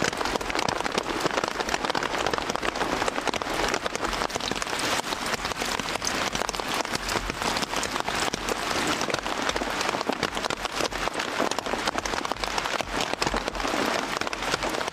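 Heavy rain falling steadily, a dense constant patter of countless drops striking surfaces.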